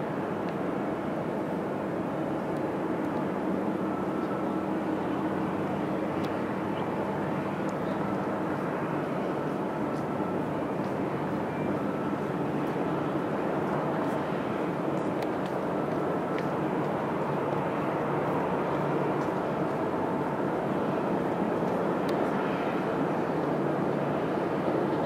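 Boeing 787-8 airliner on final approach, its Rolls-Royce Trent 1000 turbofan engines a steady hum and hiss that grows slowly louder as it nears touchdown.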